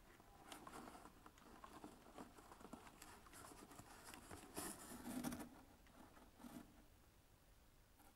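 Faint rustling and scratching of string being pulled through a hole in a cardboard box and knotted, with scattered small clicks of hands and string against the cardboard. It is loudest about halfway through and dies away near the end.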